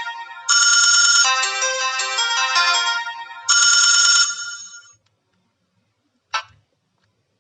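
Fly E155 mobile phone playing one of its preset ringtones, a bright electronic melody whose phrase restarts about every three seconds, then fades out and stops. A short click follows after a pause.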